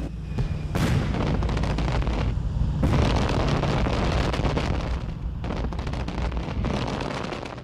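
Exploding cannon shells striking ground targets: a dense, rapid run of blasts and crackling impacts over a heavy rumble.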